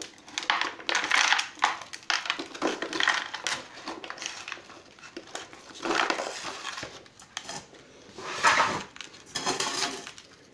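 Crinkling and scraping of a thin cut-down plastic bottle pot as an orchid's roots are worked into it by hand, with rustling of the roots and bark, coming and going unevenly and loudest about six and eight and a half seconds in.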